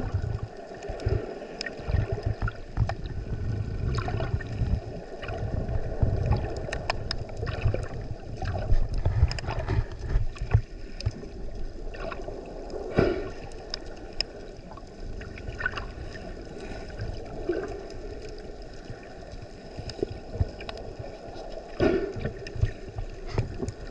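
Water sloshing and gurgling around the microphone, with a low rumble and many scattered sharp clicks and pops, a few louder ones about halfway through and near the end.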